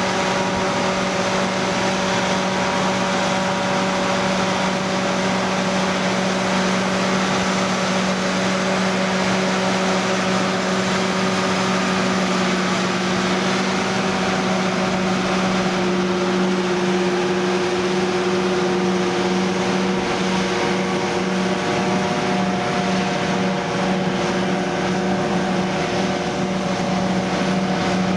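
John Deere 7450 self-propelled forage harvester at work chopping standing maize and blowing silage into a trailer. It gives a steady, unbroken machine drone with a constant low hum.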